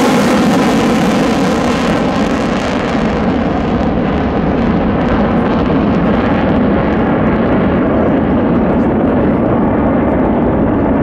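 F-35A Lightning II's single Pratt & Whitney F135 turbofan in afterburner as the jet climbs away, a loud, steady jet noise. Its high hiss dies away from about three seconds in while the low, deep noise stays strong.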